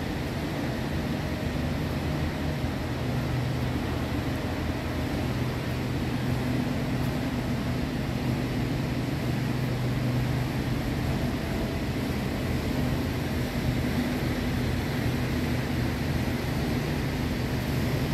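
Steady low machinery hum and rumble filling a large factory hall, with no distinct knocks or events.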